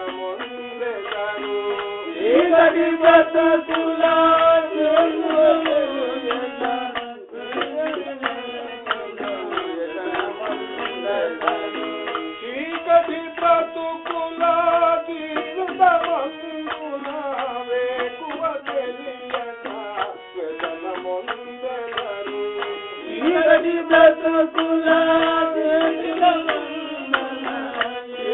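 Devotional bhajan music: hand drums keep a steady rhythm under a held, gliding melody line, with a brief break about seven seconds in.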